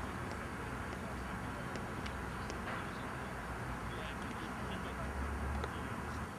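Faint open-air background: a steady low rumble with distant voices and a few faint ticks.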